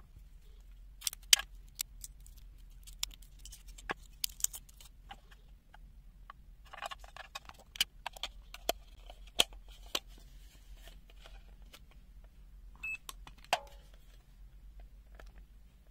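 Small plastic and metal clicks and rattles as two AAA batteries are pressed into a handheld multimeter's battery compartment and the compartment is handled. The clicks are scattered and irregular.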